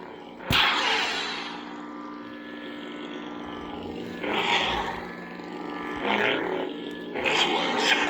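BlueForce 'Return of the Sith' lightsaber soundfont playing: a steady low hum, a sharp clash about half a second in, then swing sounds swelling and fading around four seconds in, again near six seconds and near the end.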